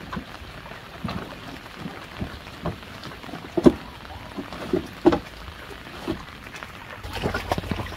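Floodwater sloshing and splashing in short, irregular bursts as someone stands and works with their hands in it, with a couple of louder splashes about halfway through.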